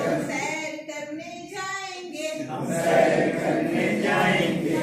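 A group of adults singing a Hindi action song together, many voices in unison, growing louder again about three seconds in.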